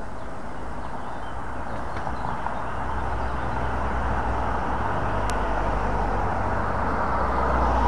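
A car engine running on the street beside the bridge, its low hum building from about two or three seconds in and then holding steady, over a steady outdoor background hiss. A single faint click about five seconds in.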